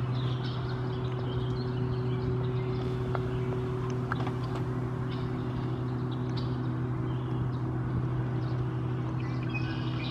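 A steady low mechanical hum with a few fainter steady tones above it, and short bursts of bird calls near the start, about halfway through, and near the end.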